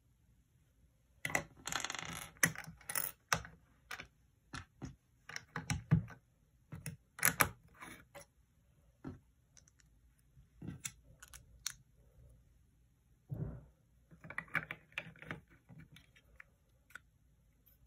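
LEGO plastic bricks being handled on a wooden table: scattered sharp clicks and knocks, with short runs of clattering about a second in and again near the end.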